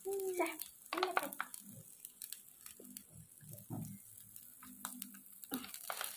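Faint, irregular small clicks and taps, with a brief voice sound just after the start.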